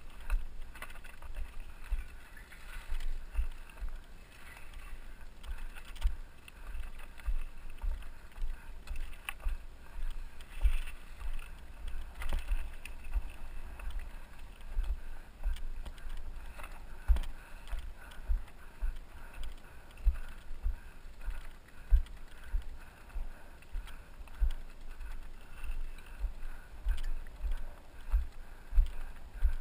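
Mountain bike moving over rocky, gravelly ground: irregular low thumps, about one or two a second, as the bike and camera jolt over stones, with scattered crunching and rattling clicks.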